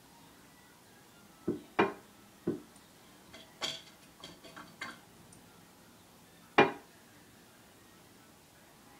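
Toilet flush handle being pawed and batted by a cat, giving a string of sharp clacks and knocks, a few in quick succession and the loudest single clack about six and a half seconds in. No flush of water follows.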